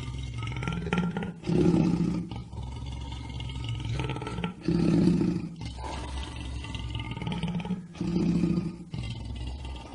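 Lion roaring: three loud roars about three seconds apart, with quieter sound between them.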